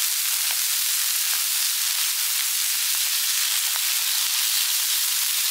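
Almaco jack fillets frying skin side down in olive oil and butter on a Blackstone flat-top griddle: a steady sizzle with a few faint crackles.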